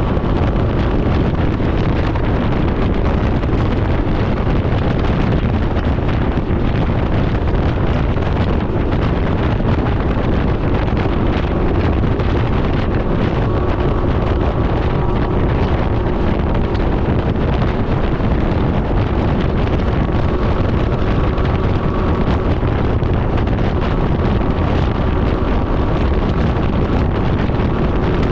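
Steady wind rushing over the microphone at road speed, over the even drone of a Can-Am Ryker 900's three-cylinder engine cruising.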